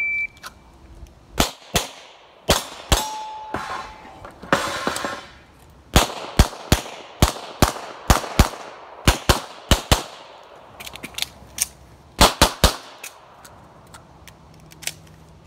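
A handgun fired in rapid strings of shots, each with a short echo, preceded by a short electronic beep like a shot timer's start signal. Partway through there is a pause of about two seconds with light clicks during a magazine change, then a final quick group of shots.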